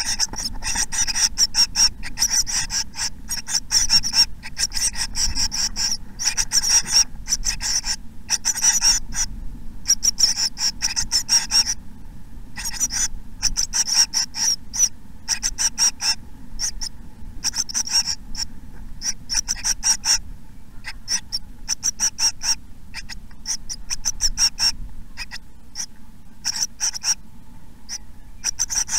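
Tit nestlings inside a nest box calling in rapid runs of short, high-pitched, raspy notes, broken by brief pauses. This is the continual begging chatter of a well-grown brood.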